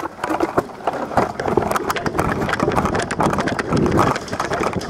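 Continuous irregular rustling and crunching, like a person moving on foot through brush with clothing and gear brushing against it.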